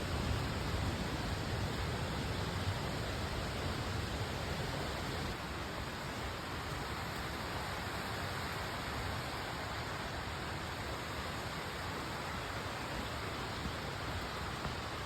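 Steady rushing of a waterfall, an even noise with no breaks that eases slightly about five seconds in.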